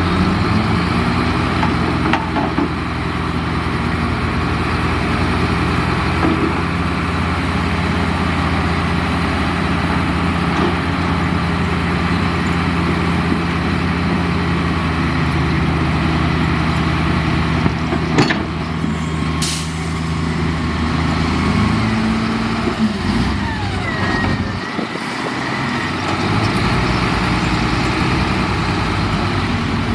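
Heavy diesel engine of road-construction machinery running steadily under load, with a sharp knock about two-thirds of the way in and a brief high hiss just after; the engine note then changes and dips before settling again.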